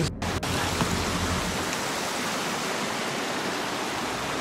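Stream water rushing steadily over rocks, an even hiss.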